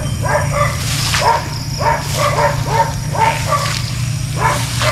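A quick run of short animal calls, roughly two a second, each bending down in pitch, over a steady low hum.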